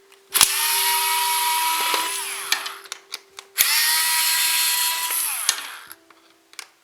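Electric screwdriver run twice in bursts of about two seconds, undoing the housing screws of a heat gun. Each burst starts with a click of the trigger, holds a steady whine, and the pitch falls as the motor winds down on release.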